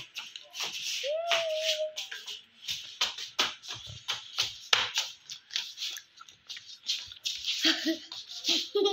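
Irregular rustling, scraping and tapping, like a phone being handled against cloth, with a short held tone about a second in and a brief voice-like sound near the end.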